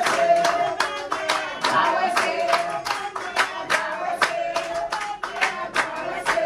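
A group of people clapping their hands in a steady rhythm, about three claps a second, while voices sing a melody along with it.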